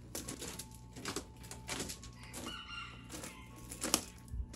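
A chicken calls once, briefly, in the background, among scattered clicks and rustles of handling; a single sharp knock just before the end is the loudest sound.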